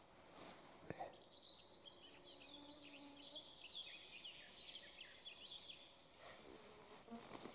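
Faint outdoor ambience: small birds chirping in quick short notes, with an insect buzzing briefly near the middle.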